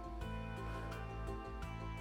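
Background music with sustained notes, possibly guitar-led, playing steadily.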